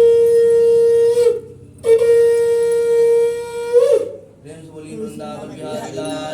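Conch shell (shankh) blown in two long, steady, loud blasts on one held note. The first blast breaks off about a second in; the second follows about two seconds in, lasts about two seconds, and ends with a slight upward lift in pitch.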